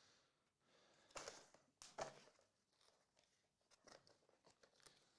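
Faint rustling and crinkling of card packaging being handled and opened, with two louder rustles about one and two seconds in, then small scattered ticks and clicks.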